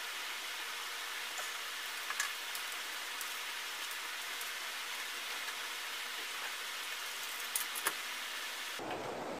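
Steady hiss of splashing, running water, with a few light clicks and knocks. Near the end it switches abruptly to a deeper, fuller rushing noise.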